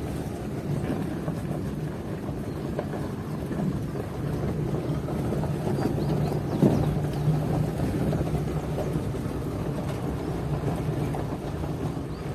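A vehicle's engine running steadily with a low road rumble while driving, with a single knock about seven seconds in.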